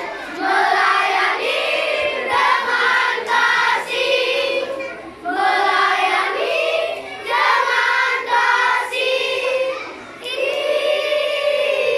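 Children's choir singing a march song together in phrases, holding a long note near the end.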